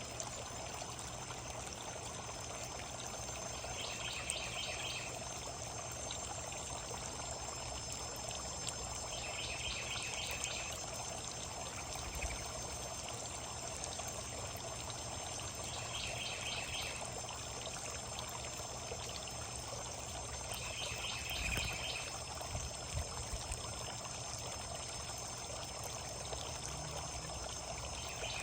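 Steady running, trickling water, with a songbird repeating a short, fast, high trill of about a second roughly every six seconds.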